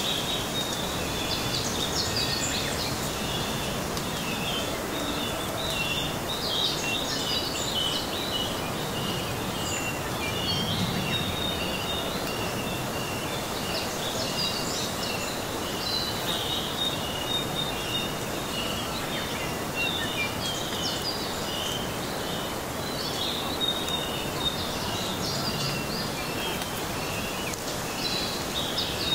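Birds chirping and twittering in short, varied phrases over a steady outdoor background hiss.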